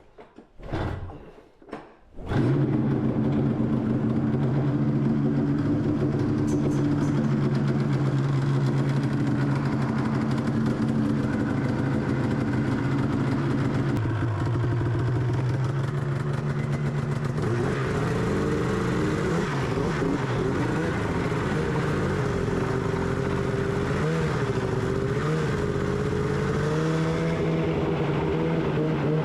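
Snowmobile engine pull-started, catching about two seconds in and then running at a steady idle. From around eighteen seconds its speed rises and falls as the throttle is worked.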